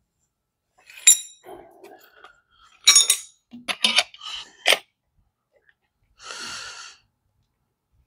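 Metal parts and tools clinking and clattering on a workbench as they are handled: a handful of sharp, ringing clinks, the loudest about three seconds in, then a short hiss of noise about six seconds in.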